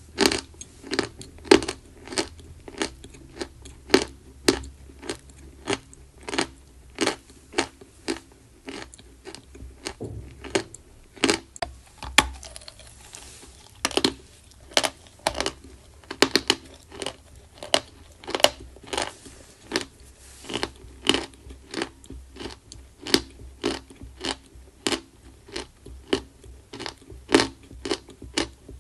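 Close-miked crunching of edible chalk being bitten and chewed: a steady run of sharp, dry crunches, about one to two a second, with a short stretch of crumbling grit about halfway through.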